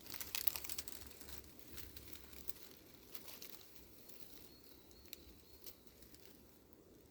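Faint crackling rustle of dry leaves or litter, busiest in the first couple of seconds and then thinning to occasional ticks. A thin, steady high tone comes in during the second half.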